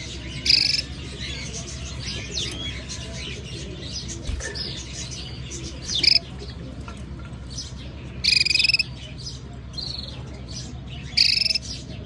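Domestic canary giving short, loud, bright calls, four in all, over a steady background of faint twittering chirps.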